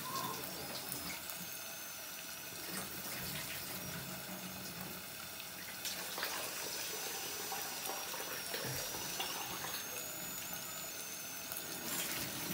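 Water running steadily from a kitchen tap as pilau rice is rinsed, with a few light clinks.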